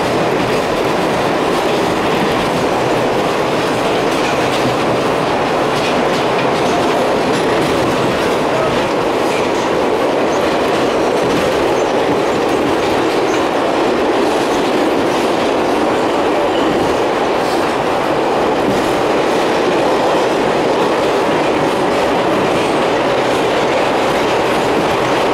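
A New York City subway car running along the track, heard from inside the car: steady, loud wheel-and-track noise.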